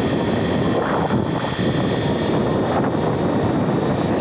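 HBX Destroyer RC car heard from its onboard camera while driving at speed on pavement: a steady rush of wind and tyre noise, with a thin, steady whine from the electric motor and gears.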